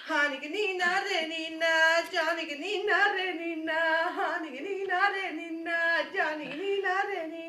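A woman singing a tune in a high voice, with held notes and frequent quick turns in pitch.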